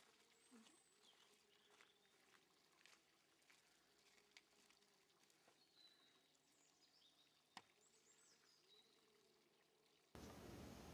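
Near silence: faint outdoor ambience with a few high, thin bird chirps and one sharp click about seven and a half seconds in. A louder steady hiss starts near the end.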